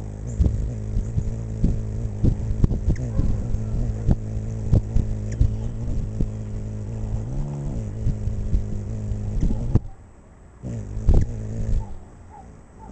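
Hummingbird's wings humming as it hovers close to the microphone: a steady low buzz that rises briefly in pitch about seven and a half seconds in and cuts off suddenly near ten seconds. Brief clicks run through it.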